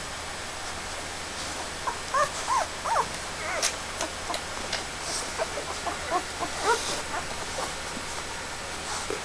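Week-old Airedale terrier puppies squeaking and whimpering while jostling to nurse: many short, high, overlapping cries, thickest between about two and seven seconds in, over a steady background hiss.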